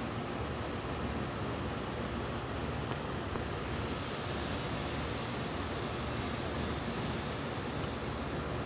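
A steady, even rumble like a vehicle or aircraft engine heard from afar, with a faint high whine held over it.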